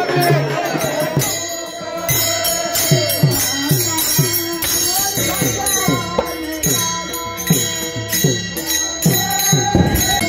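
Varkari devotional singing to taal hand cymbals and mridang drum. After crowd voices, a steady beat of cymbal clashes and falling-pitched drum strokes sets in about a second in, at about three beats a second, under group singing.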